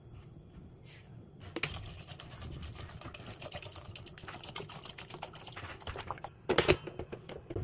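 Water being poured into an aluminium pressure cooker full of red kidney beans, splashing and crackling as it fills, starting about a second and a half in. A louder splash comes near the end.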